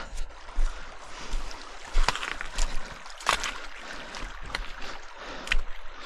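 Hikers walking up a trail: irregular footsteps and brushing about every half second to second over a steady hiss.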